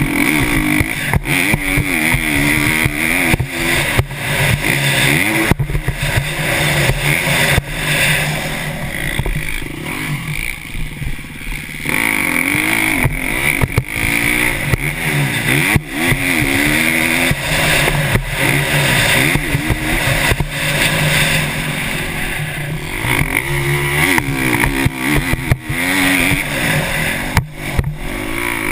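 KTM 350 SX-F's single-cylinder four-stroke motocross engine ridden hard, revving up and falling off over and over as the rider works the throttle and gears, heard from a helmet-mounted camera. A quieter off-throttle stretch comes around ten seconds in, and frequent short knocks run throughout.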